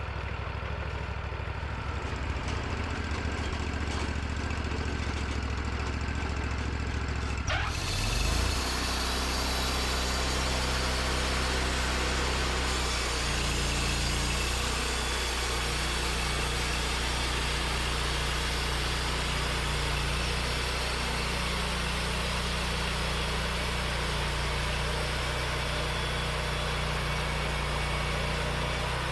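Portable sawmill's engine running at idle, then throttled up with a click about a third of the way in. It then runs steadily at speed with a wide hiss added over the engine note.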